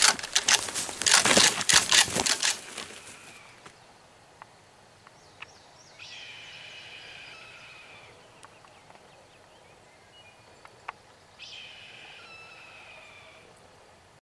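A freshly shot wild turkey flopping in the grass, its wings beating in a rapid clatter that dies out after about two seconds. Later a bird calls twice, each call about two seconds long and falling slightly in pitch.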